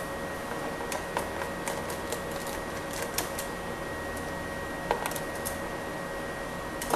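Small screwdriver backing screws out of an Acer Aspire V5 laptop's plastic bottom case: scattered light clicks and taps, a slightly louder one about five seconds in, over a steady background hiss.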